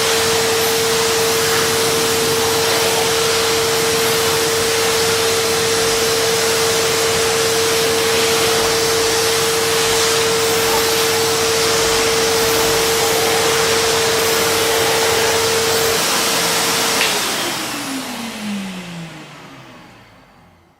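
Vacuum cleaner running steadily with a loud airy rush and a constant high motor whine, then switched off about 17 seconds in with a click: the motor whine glides down in pitch as it spins down and the rush fades out over the last few seconds.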